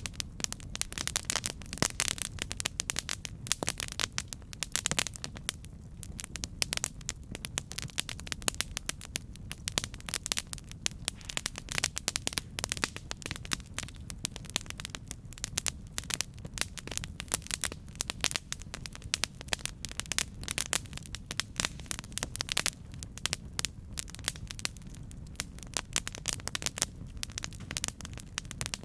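Campfire burning, wood crackling and popping in quick irregular snaps over a steady low rumble of the flames.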